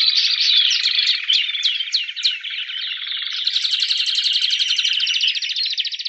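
Spanish Timbrado canary singing in rapid trills. About half a second in comes a run of about six quick falling notes, and from about three and a half seconds a fast, even trill.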